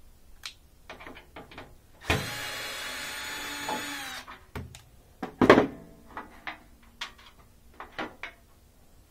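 Knocks and rattles of the washer's front panel as it is worked loose from the cabinet. About two seconds in comes a steady grinding noise lasting about two seconds, and about five and a half seconds in a single loud knock.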